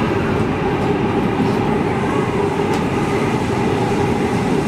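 Singapore Downtown Line MRT train in motion, heard from inside the carriage: a steady rumble with a constant hum.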